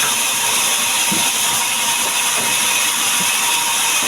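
A wood-cutting power saw running steadily, making a loud, even hissing noise with no clear pitch.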